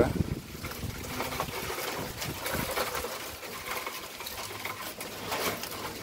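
Land crabs moving about in a wire-mesh cage: faint, scattered clicks and scratches of claws and legs on the mesh.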